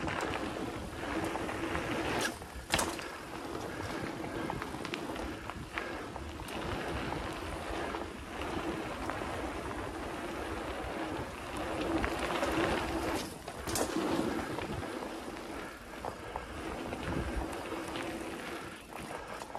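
Specialized Stumpjumper mountain bike rolling fast over a dirt singletrack: steady tyre and rattle noise with a few sharp knocks from bumps, two close together about two and a half seconds in and one near fourteen seconds.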